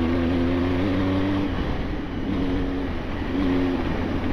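Motorcycle engine pulling under throttle over rough off-road ground, its revs climbing, easing off about one and a half seconds in, then picking up briefly twice more, over steady wind and road noise.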